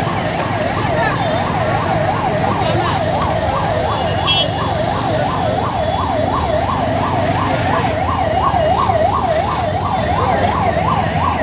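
Ambulance siren in a fast yelp, its pitch rising and falling about three times a second without a break.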